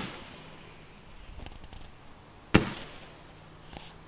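Standard Fireworks 'Moon Fall' roman candle firing its shots, each a sharp crack whose tail dies away over about half a second: one right at the start and another about two and a half seconds in, with faint small pops between them.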